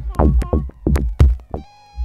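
Live electronic music: a drum-machine beat of sharp hits that stops about one and a half seconds in, leaving a held synthesizer note.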